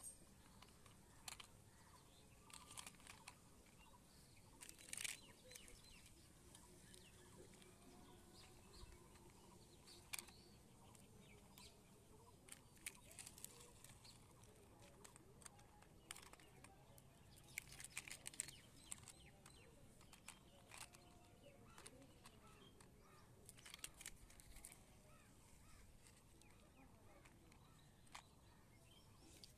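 Near silence broken by scattered faint clicks and taps, a few of them close together, as small plastic toy cars are set down and moved among plastic building blocks.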